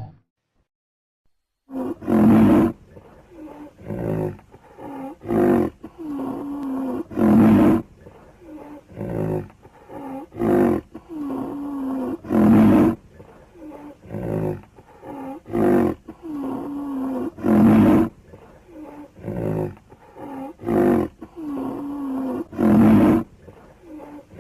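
Made-up monster vocal sound effect for a cryptid stegosaurus, built from edited animal and creature recordings. After a brief silence it repeats in a loop: a loud roar about every two and a half seconds, with quieter calls between them whose pitch bends downward.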